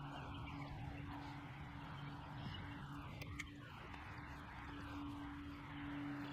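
Steady background hiss with a low, even hum; no distinct events.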